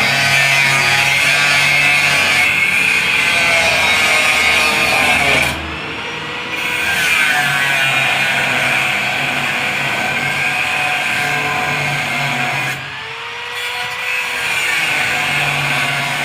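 Power grinder with an abrasive disc grinding steel as a continuous harsh rasp. The grinding breaks off twice, and in each break the motor's whine audibly slides in pitch before the grinding resumes.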